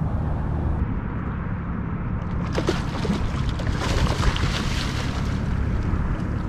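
A hooked tarpon jumping and splashing at the water's surface, a burst of splashing from about two and a half seconds in that dies away about three seconds later, over a steady low rumble.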